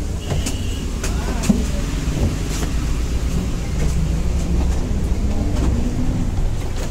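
Double-decker city bus heard from inside its cabin while moving: a steady low engine and road rumble with scattered rattles and knocks, and a short high tone about half a second in.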